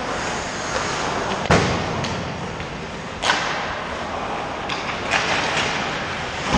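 Several sharp thuds of hockey pucks and sticks striking on an ice rink, the loudest about a second and a half in and another just past the middle, over a steady hiss of skates and rink noise.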